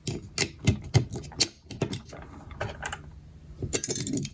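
Irregular series of sharp clicks and clacks as 9mm cartridges are pressed into a Glock magazine with a push-down speed loader, the loader's plunger snapping down and springing back, rounds clicking against the magazine lips.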